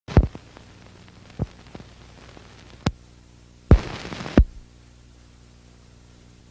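Vintage film-leader countdown effect: scattered sharp pops and crackles over a steady low hum, with a half-second burst of hiss about four seconds in, starting and ending on a loud pop.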